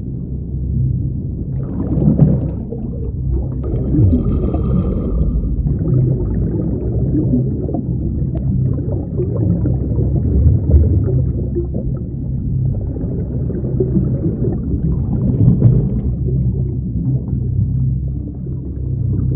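Underwater sound of scuba divers breathing through regulators: a steady low rumble with the irregular gurgle of exhaled bubbles. A brief higher-pitched sound stands out about four seconds in.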